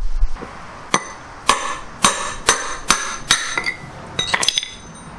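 A hammer striking a steel rod about six times, roughly two blows a second, with a metallic ring, to drive a worn front-wheel bushing out of a lawn tractor's steel wheel rim. A few lighter metal clinks follow near the end.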